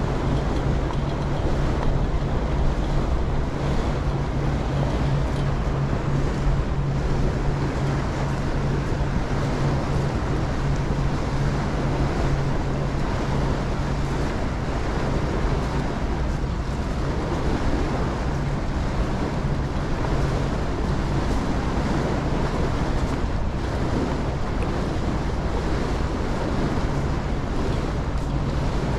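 Passenger ferry under way: its engine drones with a steady low hum while water rushes along the hull and wind buffets the microphone. The engine hum eases in the middle and comes back near the end.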